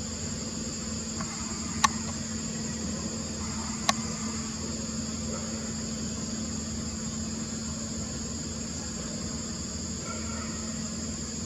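Steady high-pitched insect chorus with a low steady hum underneath. Two sharp clicks come about two seconds apart, near the start.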